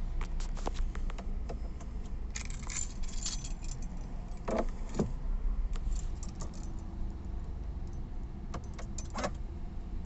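Metallic jingling and clicking in three short bouts, over a low steady rumble.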